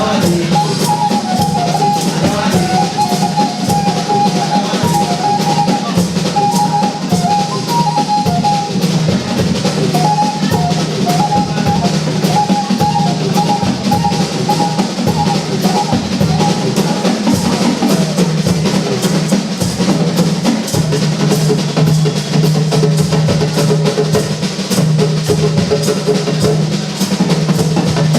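Music with a busy drum kit: rapid bass-drum and snare strokes over a steady low bass, with a short repeating melodic line in the first half.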